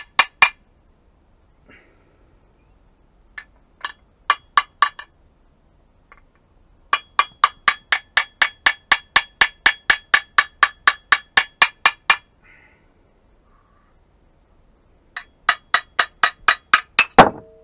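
A steel claw hammer striking the cast flywheel of a dismantled two-stroke chainsaw engine to shock it loose from the crankshaft: groups of sharp metallic taps, with a long even run of about four taps a second in the middle. Near the end comes a heavier blow that rings briefly.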